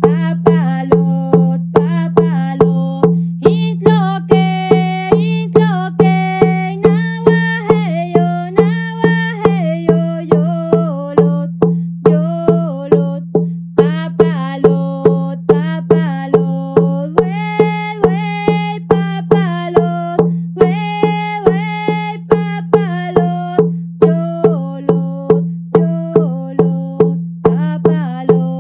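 Hide-headed temazcal hand drum, about 30 cm across, beaten with a padded beater in a steady beat of about two strokes a second. A melody and a steady low drone sound over the beat.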